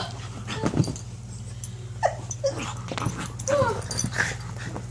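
A dog whining and yipping excitedly, several short calls that bend up and down in pitch in the second half.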